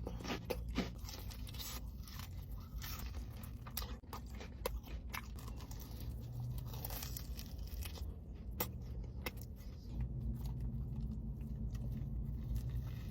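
Close-up biting and chewing of crispy fried chicken tenders, with crunchy bites every few seconds among quieter chewing.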